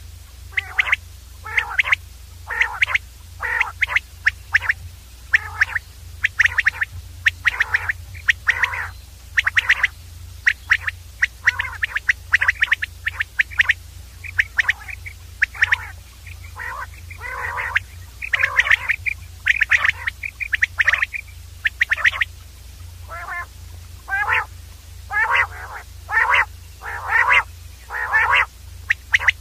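Common quail calling over and over in short, loud bursts, about one to two calls a second, over a steady low hum.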